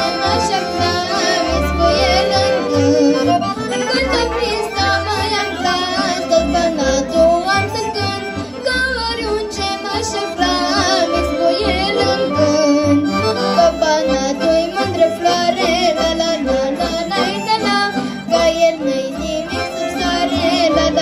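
Live Romanian folk song played by a band of accordions and saxophones over a steady bass beat, with a young girl's voice singing into a microphone, the whole amplified through a PA.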